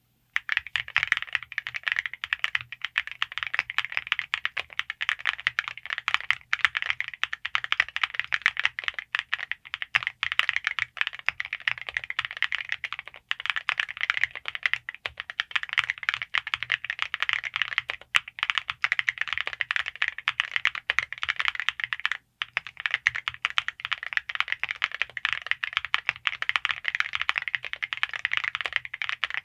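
Fast, continuous typing on a gasket-mounted TKD Cycle7 mechanical keyboard with Cerakey alumina ceramic keycaps: a dense stream of key clacks, with a few brief pauses.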